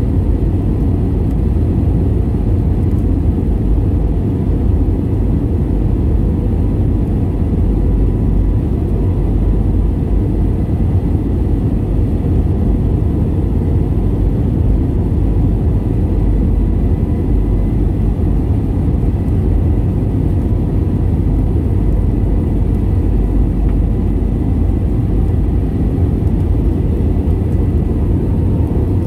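Steady cabin noise of an Airbus A320 in flight: a low, even rumble of engines and rushing air, with a faint steady tone above it.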